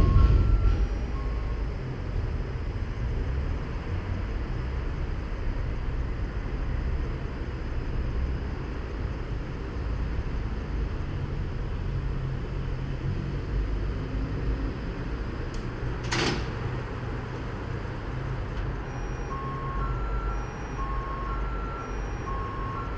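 Steady low rumble from a Dresden suspension railway car waiting at its station, with a thump at the very start and a single sharp click about two-thirds of the way through. Near the end comes an electronic signal of short beeps alternating between two pitches, like a departure warning.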